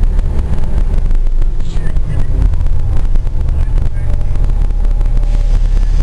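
Gillig transit bus under way, heard from inside the passenger cabin: a loud, steady low rumble of engine and road noise.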